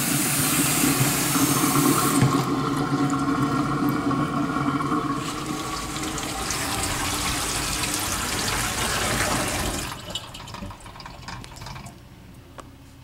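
A full kitchen sink bowl draining through a newly fitted strainer basket, water rushing down the drain, then tapering off about ten seconds in as the bowl empties. This is the fill-and-drain pressure test of the new strainer basket.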